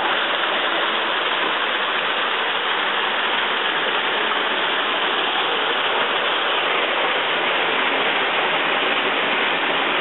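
Underground waterfall pouring and splashing in a cave: a steady, unbroken rush of falling water.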